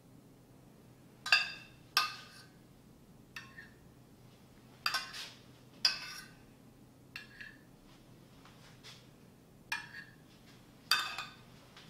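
A metal spoon clinking against a small stainless steel saucepan as sauce is spooned out, about eight short ringing clinks at irregular intervals, a few in quick pairs.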